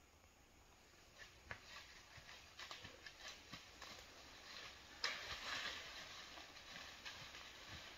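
Quiet rustling through brush with scattered snaps of twigs, and a louder crack and rustle about five seconds in.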